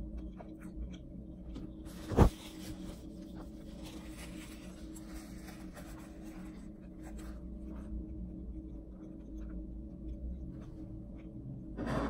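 Quiet chewing and mouth sounds from eating fried chicken. About two seconds in there is a sharp knock, followed by several seconds of paper napkin rustling as the mouth is wiped, all over a steady low hum.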